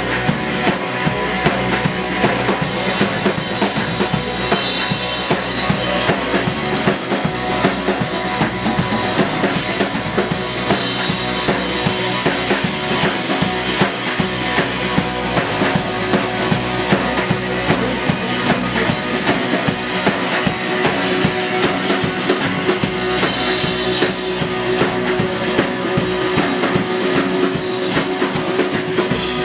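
Live rock band playing an instrumental stretch: drum kit driving a steady beat with bass drum and snare, over electric guitar and bass.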